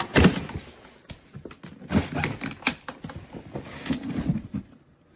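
Hardside polycarbonate suitcase being unlocked and opened by hand: an irregular series of clicks and knocks as the TSA lock button is pressed and the shell is handled.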